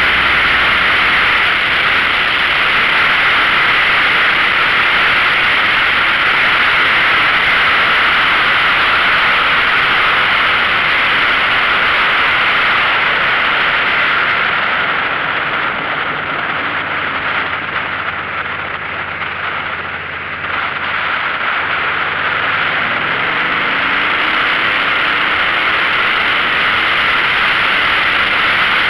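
Yamaha XVS1300A Midnight Star V-twin with a Vance & Hines Pro Pipe 2-into-1 exhaust, running at road speed under heavy wind noise. Around the middle it eases off and the low engine note comes through, then it picks up again with a rising pitch as the bike accelerates.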